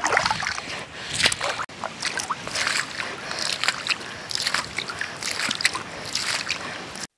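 Water being bailed out of a shallow muddy pool with a small plastic container: repeated scoops and splashes, irregular and several a second, as each load is thrown out over a mud dam.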